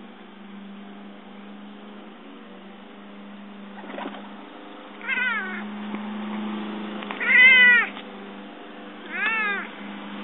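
Domestic cat chirping three times, short pitched calls that rise and fall, the middle one longest and loudest. It is the excited chirp a cat makes while watching a bird it cannot reach, here a pigeon outside the window.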